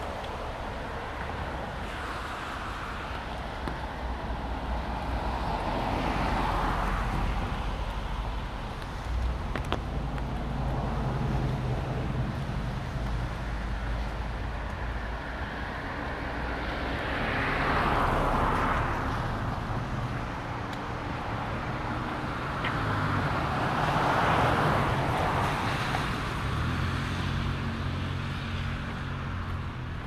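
Cars passing on a wet road, their tyre hiss building and fading several times over a steady low traffic rumble.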